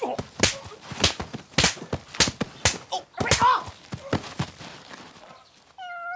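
A rapid series of sharp open-hand slaps across faces, about two a second, with short grunts and cries among them, tailing off after about four seconds. Near the end comes a short, high, held cry.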